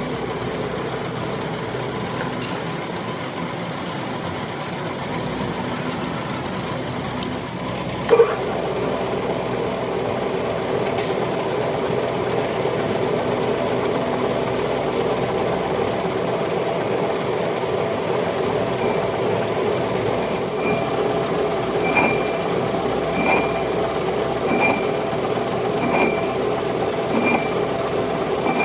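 Metal lathe running steadily while machining a cast-iron pulley, with one sharp clank about eight seconds in. From about two-thirds of the way through, a short ringing chirp repeats about every 1.3 seconds.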